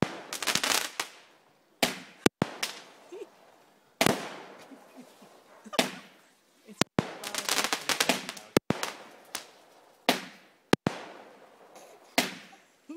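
Fireworks display: aerial shells bursting in sharp bangs every second or two, each trailing off in an echo, with spells of rapid crackling in between.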